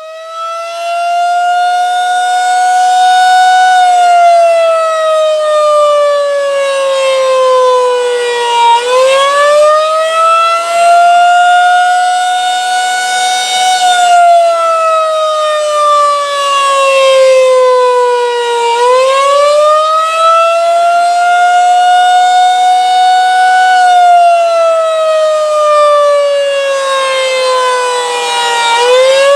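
Federal Signal 2001-SRN rotating electromechanical outdoor warning siren sounding the attack signal: a loud wail that rises quickly and falls slowly, about every ten seconds.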